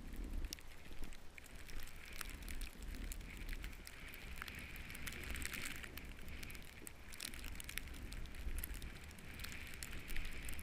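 Snowboard sliding over fresh snow: a steady scraping hiss with many small crackles, over a low rumble of wind on the microphone.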